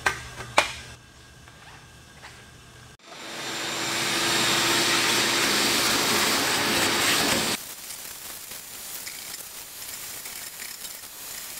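Wet/dry shop vacuum sucking metal shavings out of a freshly hole-sawed fuel tank. A couple of clicks come first. About three seconds in the vacuum runs up to a loud, steady hiss with a low hum, then drops sharply to a much quieter hiss for the last few seconds.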